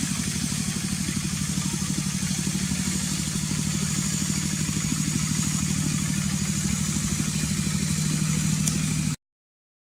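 Engine running steadily at an even, pulsing idle, then cutting off abruptly about nine seconds in.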